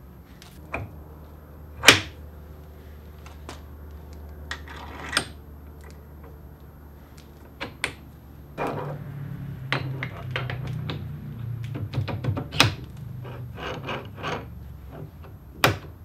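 Steel parts of a homemade wedge-type quick change toolpost clicking, clinking and knocking as it is test-fitted on a lathe's compound slide: the clamping stud, toolpost body, nut and tool holder handled and set in place. A sharp metal knock comes about two seconds in, with a run of smaller clicks and knocks through the second half and two more sharp knocks near the end, over a low steady hum.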